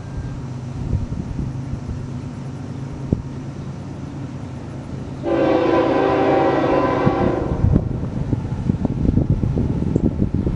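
Diesel freight locomotives running, with one long blast of the lead Union Pacific locomotive's air horn about five seconds in, lasting over two seconds. After the horn, the train's wheels clatter over the rail joints.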